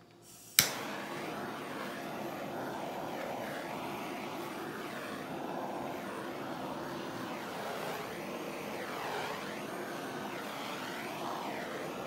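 Handheld butane torch lit with a sharp click, then its flame hissing steadily for about eleven seconds, the tone wavering as it is swept over wet acrylic pouring paint to pop bubbles and bring up cells. It shuts off with a click or two at the end.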